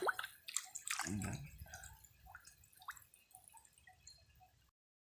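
Water dripping from a hauled-in fishing gill net, the drops slowing and thinning out, with a short low rumble about a second in. The sound stops abruptly near the end.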